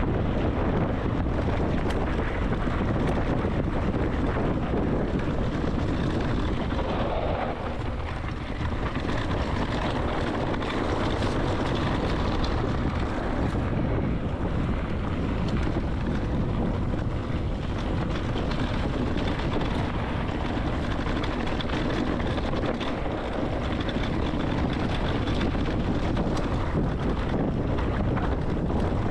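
Steady wind noise on the microphone with the rumble of an electric mountain bike riding fast downhill on a dirt trail.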